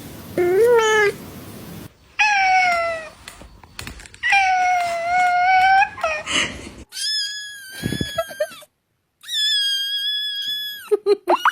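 Cats meowing: a string of about six separate meows, some short and rising, others drawn out for a second or more, with the last two long and high-pitched and a few quick short cries at the very end.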